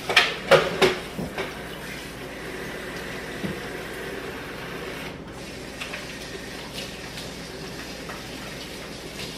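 Water running steadily from a kitchen tap, with a few knocks and clatters of kitchenware in the first second and a half.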